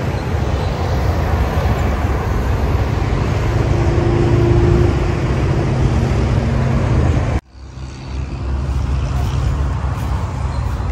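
Steady road traffic noise from a busy seaside road below, with one vehicle's engine note standing out around four to five seconds in. The sound drops out abruptly for a moment about seven seconds in, then similar outdoor rumble resumes.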